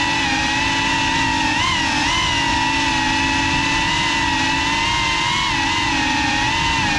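FPV quadcopter's electric motors and propellers whining at a steady pitch, the tone wavering slightly with small throttle changes.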